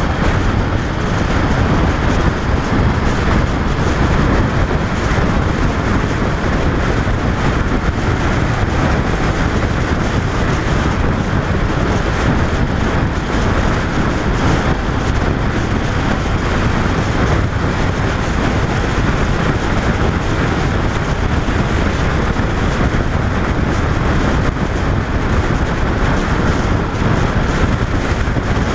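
Steady riding noise from a 2005 Honda VFR800 V4 sport-touring motorcycle cruising at an even speed: wind rushing over the bike-mounted camera's microphone, with engine and road noise underneath.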